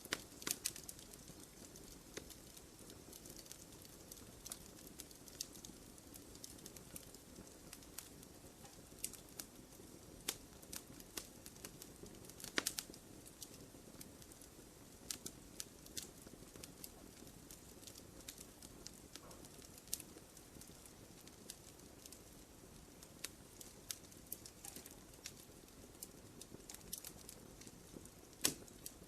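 Wood fire crackling in a fireplace: irregular sharp pops and snaps, a few louder ones about a third of the way in and near the end, over a soft low hiss of burning.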